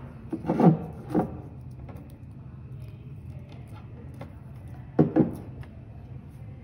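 A stepper motor and its cable handled on a wooden table: a few short knocks and clatters near the start and again about five seconds in, over a faint steady low hum.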